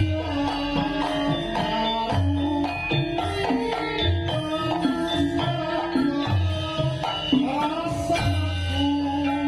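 Javanese gamelan ensemble playing, with kendang hand-drum strokes under held melodic tones.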